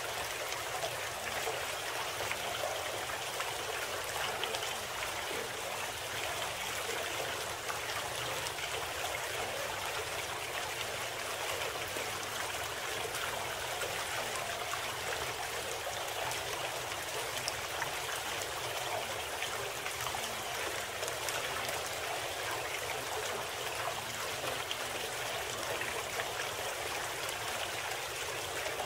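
Steady, unbroken sound of running water like a stream, serving as the audible bed of a subliminal audio program.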